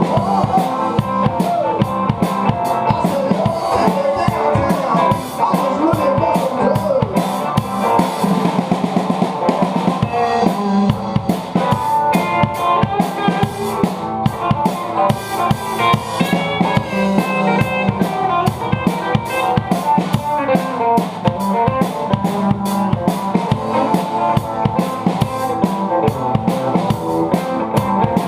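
A rock band playing, with a drum kit beating steadily and prominently over guitar.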